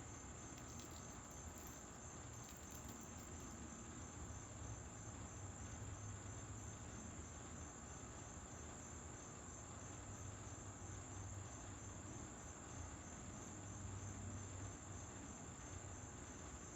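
Late-summer insect chorus, crickets or katydids: a steady, faint, high-pitched trilling with an even pulse a few times a second.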